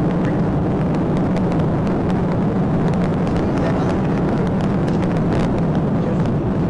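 Steady engine, road and wind noise inside a Dodge Charger patrol car driving at high speed.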